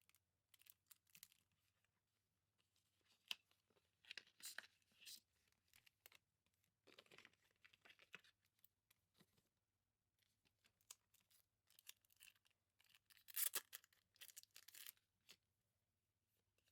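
Packaging being handled and opened by hand: irregular rustling and tearing of paper or plastic wrap, with a louder burst of tearing about three quarters of the way through.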